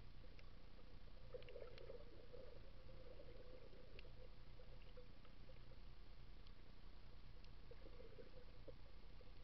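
Faint underwater ambience picked up by a submerged camera: a steady low hum with scattered small clicks.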